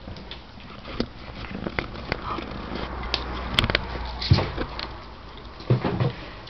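Kittens scampering and tumbling on a hard tiled floor: irregular light paw taps and clicks, with a few heavier thumps about halfway through and again near the end.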